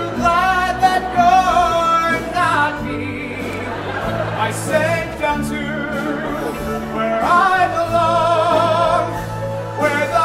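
A stage musical number: voices singing long held notes with vibrato over instrumental accompaniment with a steady bass.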